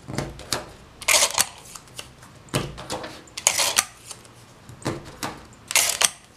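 Paper and card rustling and rubbing as they are handled and pressed in place: short scraping rustles, about one a second.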